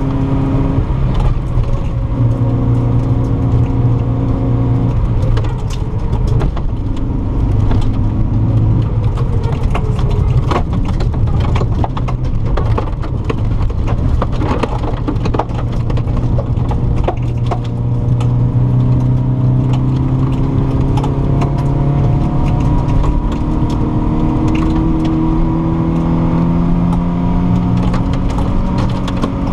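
Volvo 940 rally car's engine driven hard on a gravel stage, heard from inside the cabin: its pitch steps up and down with gear changes and lifts in the first half, then climbs steadily near the end. Stones and gravel clatter against the underbody throughout as short sharp clicks.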